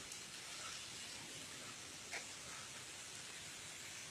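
Faint, steady background hiss with no distinct source, and one brief faint sound about two seconds in.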